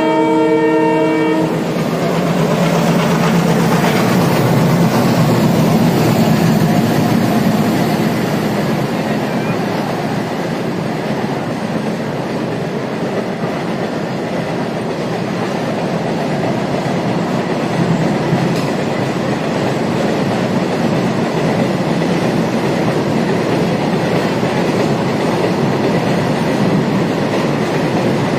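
A twin WDM-4 diesel locomotive pair finishes a multi-note horn blast about a second and a half in, then its engines pass with a low rumble. A long goods train of hopper wagons follows, rolling by with steady wheel-on-rail clatter.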